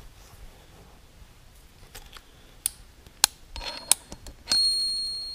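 Steel transmission gears and a snap ring being worked along a tractor countershaft: a few sharp metallic clicks, then near the end a clink that leaves a high ringing tone fading over about a second.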